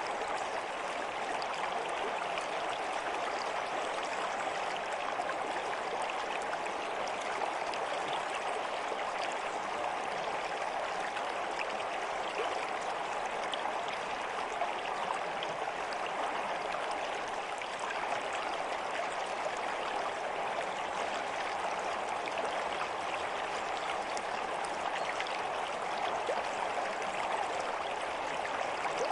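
Stream water flowing steadily, with a constant rush and fine splashes throughout.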